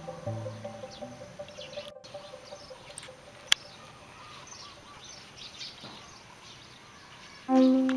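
Faint small birds chirping over quiet outdoor ambience, with one sharp click about three and a half seconds in. Background music fades at the start and comes back in near the end.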